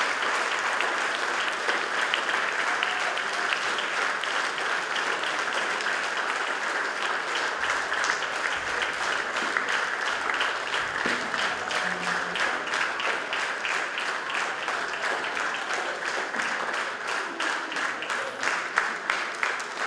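Audience applauding steadily. In the second half the clapping falls into an even rhythmic beat in unison.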